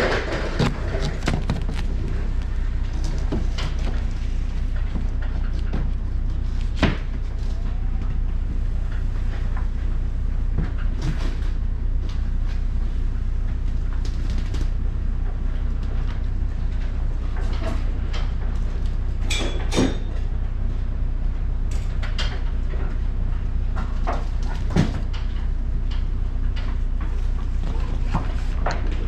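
Red ratchet lashing straps and their metal hooks being handled, giving a few scattered clicks and knocks over a steady low hum.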